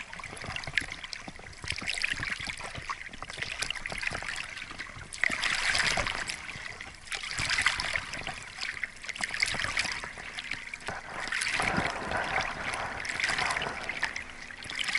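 Water splashing and trickling around a small boat as it is paddled, swelling in surges every couple of seconds.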